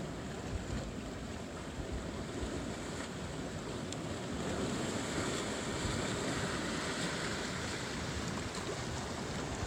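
Ocean surf breaking and washing over lava rocks: a steady rushing roar of water that swells about halfway through.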